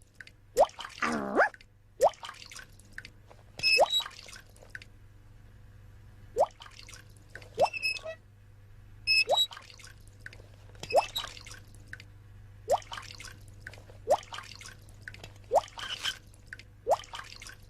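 Cartoon sound effect of a leaky faucet dripping: a short plink that rises in pitch, repeating about every one and a half seconds, some drops with a bell-like ring.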